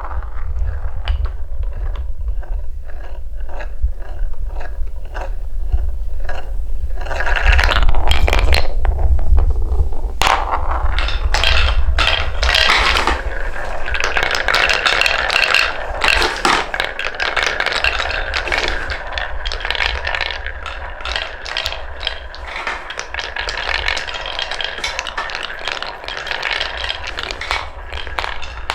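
Balls rolling and clattering along a wooden marble run. In the first several seconds they tick at about two or three clicks a second, then a dense rattling roll with many sharp clicks takes over, over a low rumble.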